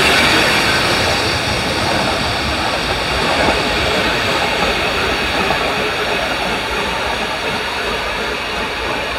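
Bulleid Pacific steam locomotive Braunton pulling its train out: a loud, steady hiss and rumble of steam and rolling coaches that fades slightly as it draws away.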